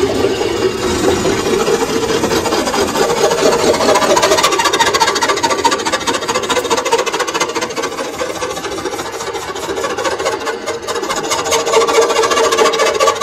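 Metal lathe turning a round sheet-metal electric stove frame: the cutting tool rasps and scrapes against the spinning metal, with a steady tone running under the noise. It eases off a little in the middle and picks up again near the end.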